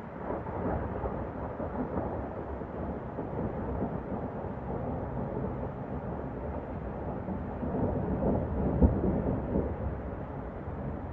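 Rolling thunder: a low rumble that starts abruptly, swells and rolls on, with a sudden louder clap about nine seconds in, over the steady hum of distant freeway traffic.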